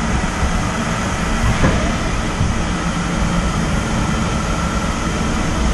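Nakamura-Tome TW-20 CNC lathe running with its spindle turning: a steady mechanical hum with a faint high whine, and a light tick about a second and a half in.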